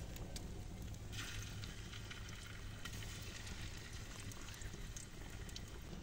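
Wood fire crackling under a frying pan of hot oil: scattered sharp pops over a sizzling hiss that gets louder about a second in, with a low rumble underneath.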